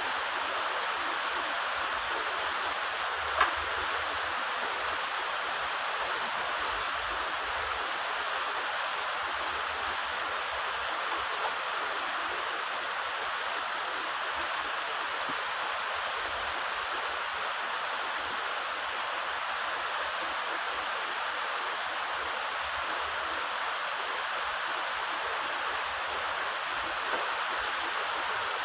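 Heavy rain falling steadily, a dense even hiss, with one sharp tap about three seconds in.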